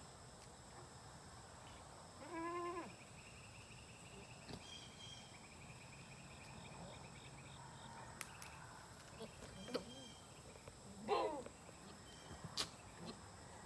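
Goats bleating: two short, wavering bleats, one about two seconds in and a louder one about eleven seconds in. Between them there is a faint high trill and a few sharp clicks.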